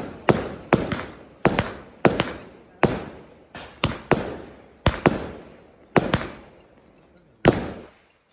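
Aerial fireworks going off in quick succession: sharp bangs, about one to two a second, each dying away over a fraction of a second. The loudest bang comes about seven and a half seconds in.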